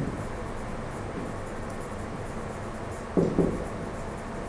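Marker writing on a whiteboard, a faint, steady scratching of pen strokes, with one short low-pitched sound a little over three seconds in.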